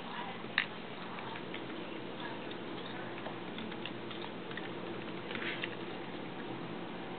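Faint, scattered clicks from a computer keyboard and mouse in use, over a steady low hum, with one sharper click about half a second in.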